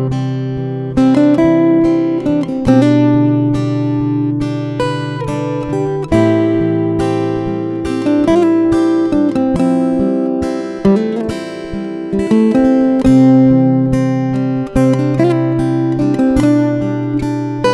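Acoustic guitar music: single plucked notes over held bass notes, with the chord changing every couple of seconds.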